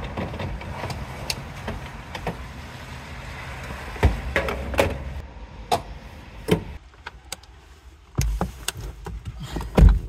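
Refuelling at a gas pump: a steady rushing hiss while fuel runs into the tank, then a string of sharp clicks and knocks between about four and six and a half seconds in as the nozzle is pulled out and hung back on the pump. Two heavy thumps near the end, the last and loudest a car door shutting.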